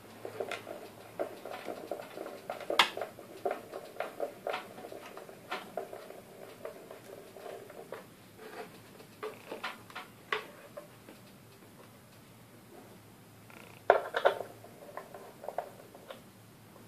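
Hand screwdriver driving wood screws through a subwoofer driver's frame into its wooden mounting board: a fast run of clicks and creaks for the first eight seconds or so, then scattered clicks, with a louder clatter about fourteen seconds in.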